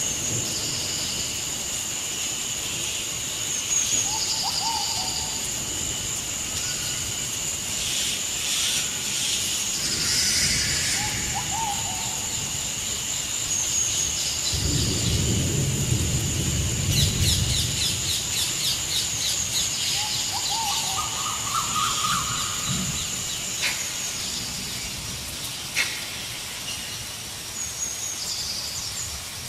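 Forest ambience: a steady high insect-like drone, with short bird calls every few seconds and a rapid chattering trill partway through. A low rumble swells for a couple of seconds around the middle.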